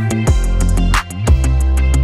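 Background music with a steady beat and a deep bass line.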